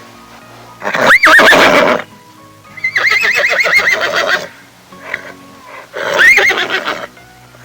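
A horse neighing three times. The middle whinny is the longest, with a quavering pitch, over a faint steady music bed.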